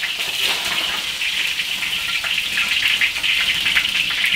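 Hot oil sizzling steadily in a large iron wok, with many small crackles, as pan-fried snakehead fish bones are ladled out of it.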